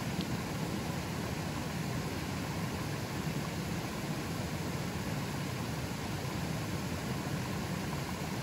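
River water flowing fairly strongly: a steady, unbroken rush, heaviest in the low range.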